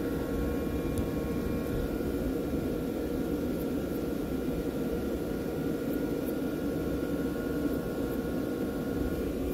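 Machinery running steadily: a constant hum and hiss with a few faint steady whining tones.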